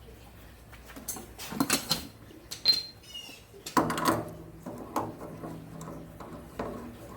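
Scattered clicks and knocks of hand tools working on water heater fittings, with a short high squeak about three seconds in.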